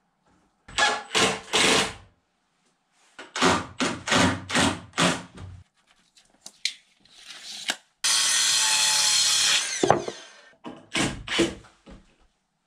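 A cordless drill-driver running in short bursts as it drives screws into rough-cut lumber framing. In the middle a circular saw cuts a board for nearly two seconds and then winds down with a falling whine. Near the end there are more short drill bursts.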